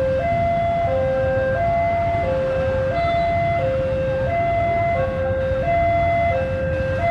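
A two-tone warning alarm switching steadily between a lower and a higher note about every two-thirds of a second, over the low rumble of a diesel locomotive pulling a passenger train.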